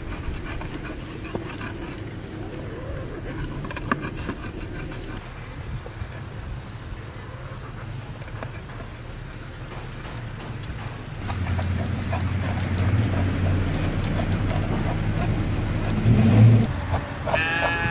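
A low, steady engine hum that grows louder about two-thirds of the way through and swells briefly near the end, followed by a short animal bleat just before the end.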